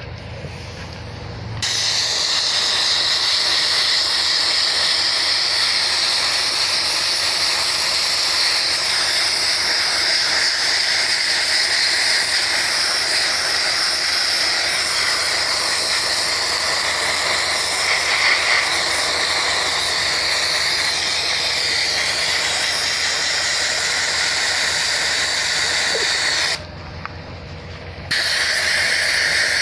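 Handheld sandblaster blasting abrasive against a rusty metal sign base: a loud, steady hiss that starts about two seconds in, stops for about a second and a half near the end, then starts again, with a low hum underneath.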